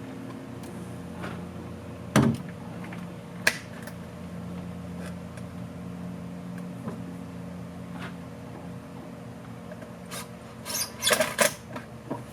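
Hose clamps and tools being handled while clamps are refitted: two sharp metal knocks, then a quick run of clatters near the end, over a steady low hum.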